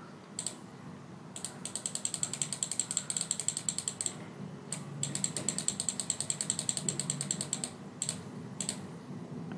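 Computer mouse clicking: a few single clicks, then two long runs of fast, even clicks at about ten a second, stepping a clock setting up and down.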